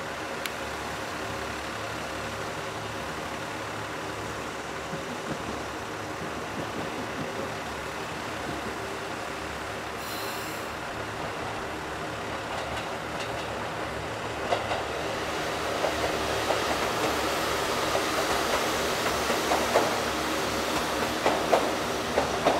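Diesel railcar engine running with a steady hum. About two-thirds of the way in the sound grows louder and sharp, irregular clacks of wheels over rail joints start as the train moves.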